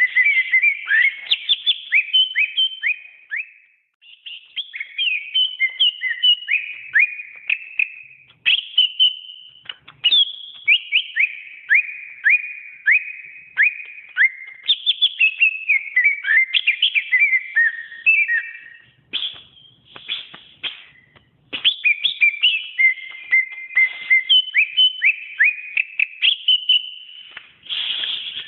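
Cucak ijo, a leafbird, singing a fast, varied song of clear whistled notes and quick slurred chirps, in phrases broken by a few short pauses.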